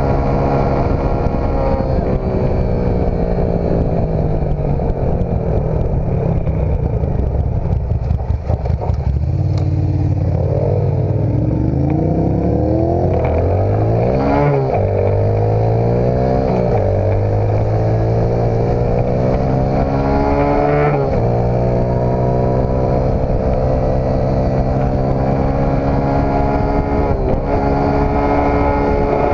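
Dirt bike engine running while being ridden, steady at first, then revving up and down several times in the middle with sudden drops in pitch as gears change, before settling back to steady running.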